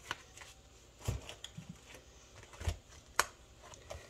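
Cash-envelope binders handled on a countertop: a few soft thumps and scattered clicks as one binder is closed and set down and another is picked up and opened, with one sharper click about three seconds in.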